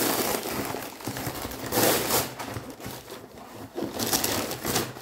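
Packaging being opened by hand, crinkling and scraping in irregular bursts.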